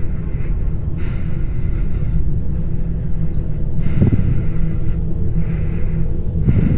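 Steady low rumble with a few breaths, each about a second long, close to a phone's microphone.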